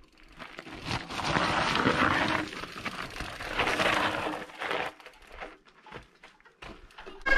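Mountain bike tyres crunching over loose gravel and rock as riders pass, loudest from about one to three seconds in and again around four seconds.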